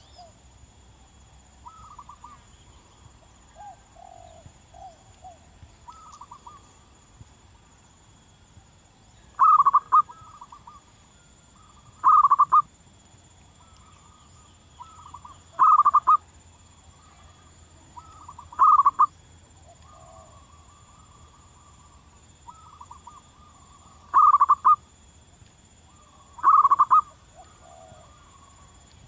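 Zebra dove cooing: a close bird's short burst of rapid, clipped notes, repeated six times a few seconds apart, with fainter bird calls between them.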